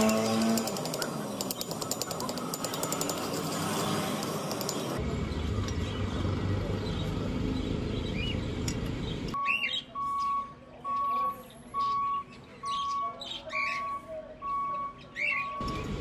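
Slag being chipped and scraped off a fresh weld bead on steel, a fast run of scraping clicks that stops abruptly about five seconds in. Later a steady beep tone repeats about once a second, with birds chirping over it.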